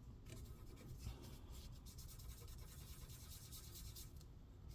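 Faint rubbing of a paper towel wiping off old, stuck-on thermal paste.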